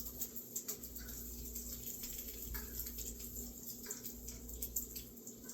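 Bacon frying in a pan: a steady sizzle of hot grease with scattered crackles and pops, over a low steady hum.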